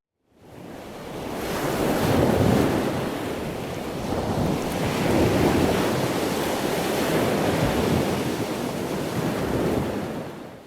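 Wind rushing across the microphone, a steady noise that swells and eases, fading in just after the start and fading out at the end.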